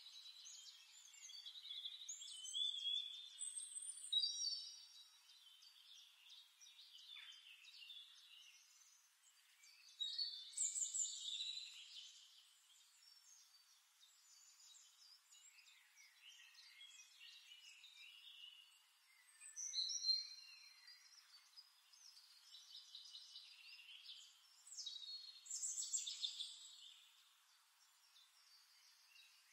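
Birds singing: faint, high-pitched chirps and trills in repeated phrases, with louder bursts every several seconds.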